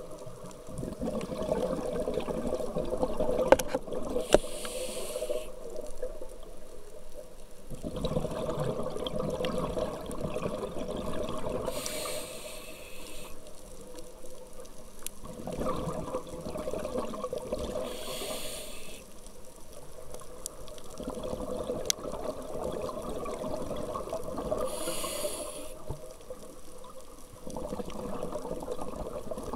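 Scuba diver breathing through a regulator underwater: a short hiss on each inhale, then a longer bubbling rush of exhaled air, about one breath every six seconds. A few sharp clicks stand out over it.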